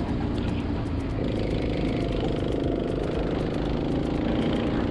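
Rental go-kart's small Honda four-stroke engine running at speed, heard on board, its note shifting about a second in.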